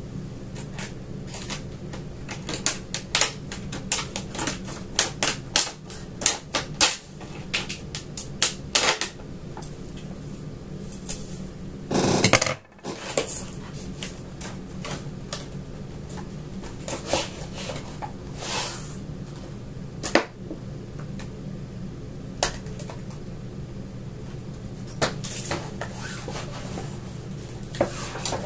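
A cardboard box being opened and its contents unpacked: a long run of irregular clicks, knocks and rustles of cardboard and plastic packaging, with one louder rushing noise about twelve seconds in, over a steady low hum.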